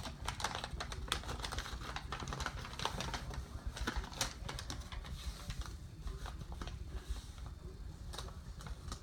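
Paper instruction sheet for a toy being unfolded and handled: irregular crinkling and quick clicks, many in a row.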